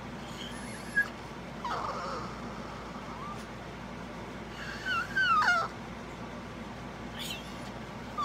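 French bulldog whining to wake its sleeping owner: two drawn-out whining calls, the first falling in pitch, the second wavering up and down. A brief sharp click comes about a second in.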